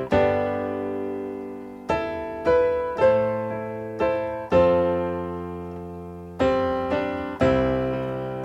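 Electronic keyboard on a piano sound playing slow chords spread out across the keys. A new chord is struck every one to two seconds and each is left to ring and fade.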